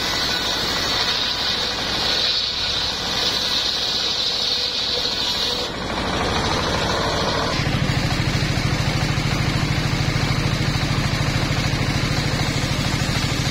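Circular saw table driven by a single-cylinder diesel engine. For about the first six seconds the blade cuts a wooden plank with a high whine over the engine. Then the cut ends, the blade spins free, and the engine's steady, rhythmic beat is heard plainly.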